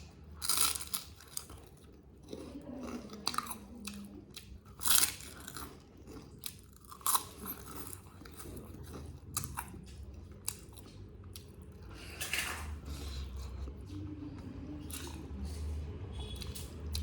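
Close-miked eating sounds of a meal of chicken curry and rice: chewing and crunching, with irregular sharp wet smacks.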